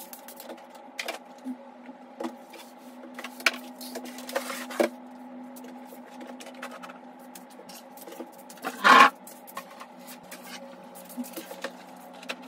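Items being handled and set down on a desk: scattered light clicks and knocks, with one louder half-second scrape or clatter about nine seconds in, over a steady low hum.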